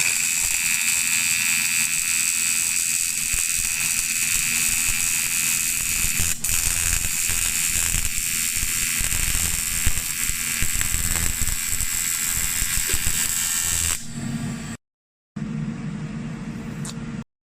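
An electric power tool grinding metal, with a steady loud whine and hiss. It breaks off suddenly about fourteen seconds in, and a shorter, quieter stretch of the same kind of running follows.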